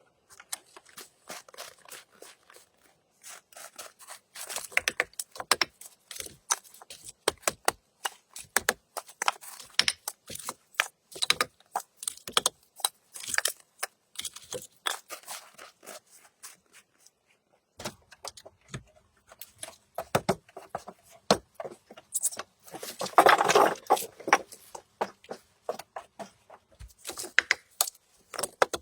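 Firewood and kindling being handled to light a wood stove: a dense, irregular run of small snaps, knocks and scrapes, with a louder rushing scrape late on.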